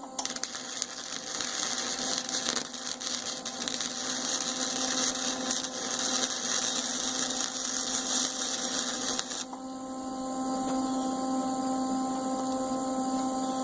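Electric arc welding: the arc crackles and sputters steadily for about nine seconds, then stops abruptly. A steady electrical hum carries on underneath and remains after the arc stops.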